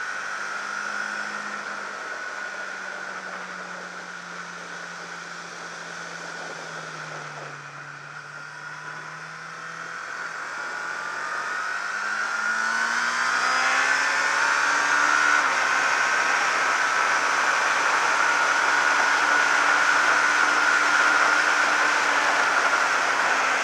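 600 cc supersport racing motorcycle engine heard onboard at speed: the engine note sags over the first several seconds, then climbs from about halfway and holds high and louder as the bike runs flat out down the straight, with wind rushing over the microphone.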